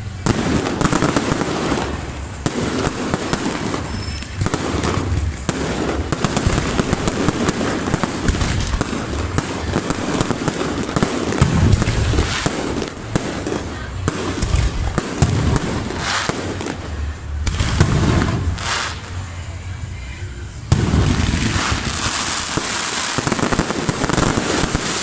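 Fireworks display: dense, continuous bangs and crackling from aerial shells bursting overhead, easing briefly about twenty seconds in before picking up again.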